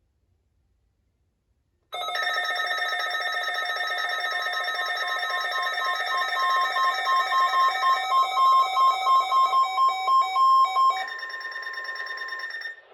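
Electronic alert tone from a weather radio receiver: a loud steady tone of several high pitches starting about two seconds in. A beep pulses over it about three or four times a second through the middle, and the sound thins out near eleven seconds and cuts off just before the end.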